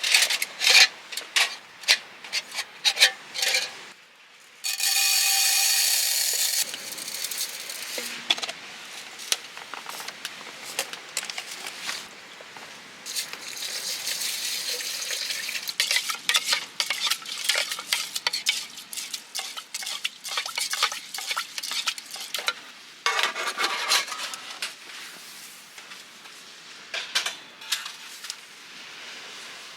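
Utensils clinking and scraping against pots and dishes in a run of short knocks, with a louder steady rushing sound lasting about two seconds, about five seconds in.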